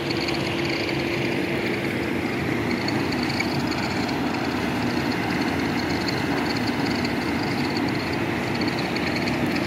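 Heavy factory machinery running steadily: a constant mechanical drone with a low, unchanging hum.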